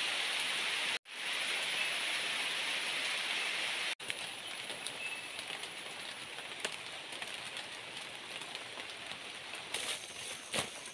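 Steady heavy rain falling on jungle foliage, a continuous hiss. It breaks off briefly twice, about one second and four seconds in; after the second break the rain is lighter, and a few sharp ticks of drips or leaf rustle come near the end.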